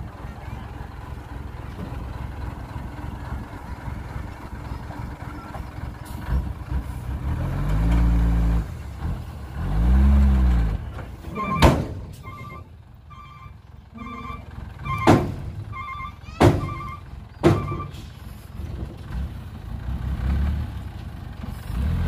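Heavy diesel truck engine running, revving up and back down twice, then a reversing alarm beeping steadily for several seconds. Four sharp knocks ring out around the time of the beeping.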